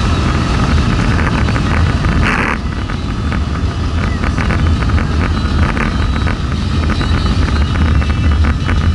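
Toyota Supra's engine running under way with road noise, heard from inside the cabin. A short hiss comes about two seconds in, after which the engine note drops a little.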